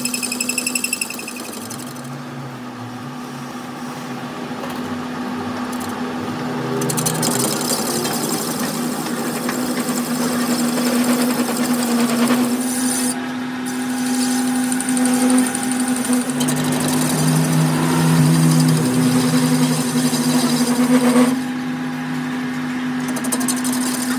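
Metal lathe turning a heavy truck wheel hub while the cutting tool machines the inside of its bore: a steady machine hum under the scraping noise of the cut, with a thin high whine joining in about halfway through.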